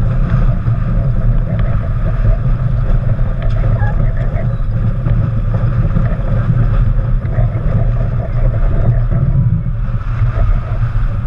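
Wind buffeting the microphone of a camera on the deck of a racing yacht under sail, with water rushing along the hull; a steady, loud rumble without breaks.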